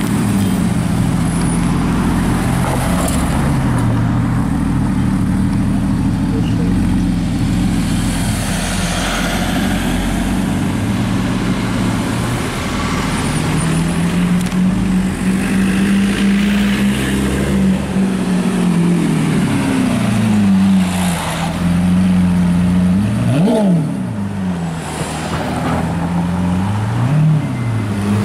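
Porsche Cayman's flat-six engine revving again and again as it creeps along in traffic, its pitch swinging up and down with each press of the throttle. Near the end come two quick, sharp blips.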